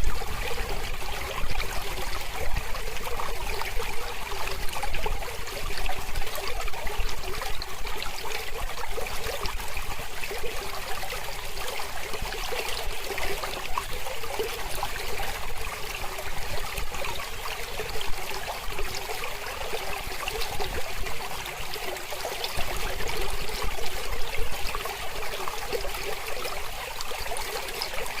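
Mountain stream flowing steadily over rocks, a continuous splashing and trickling rush of water.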